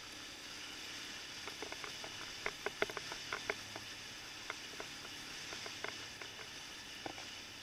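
Onboard sound of a Suzuki LTZ 400 quad running over a loose, stony dirt track: a steady rushing noise with many sharp clicks and ticks from the rough surface, thickest about two to four seconds in.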